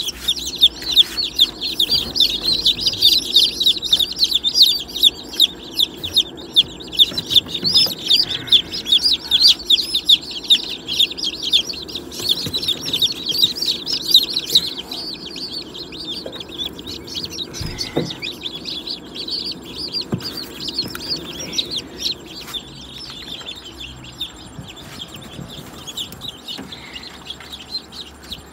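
A crowd of newly hatched chicks peeping, a dense chorus of short, high peeps that thins out about halfway through, with a few knocks from handling.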